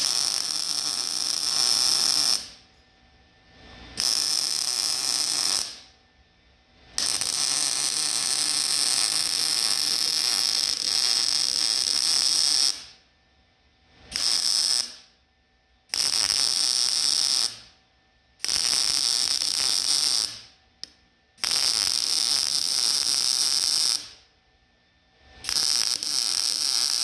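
MIG welder arc crackling as a seam in a steel truck frame is welded, the gun weaving to keep the puddle flowing in the joint. It comes in about eight runs of one to six seconds each, with short pauses between the runs.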